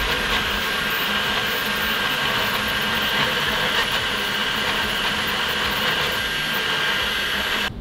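Elegoo Centauri Carbon CoreXY 3D printer running a print: a steady whir of its fans and motion system, even in level throughout.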